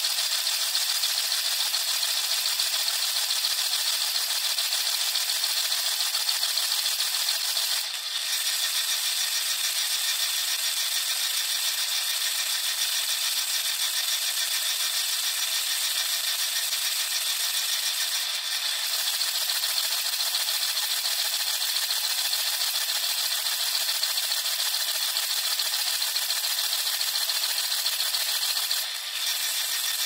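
Water from a Bosch dishwasher's spray arms striking the racks and the camera inside the tub during the heated wash: a steady spraying hiss with a rattle. It dips briefly three times.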